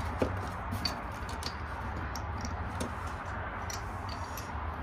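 Small porcelain cups clinking and tapping as they are handled and lifted out of a cardboard box, a scatter of light irregular ticks over a steady low hum.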